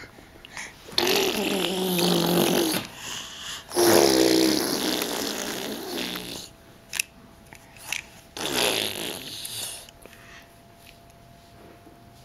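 A toddler making three drawn-out, breathy blowing noises with her mouth, each lasting one to three seconds.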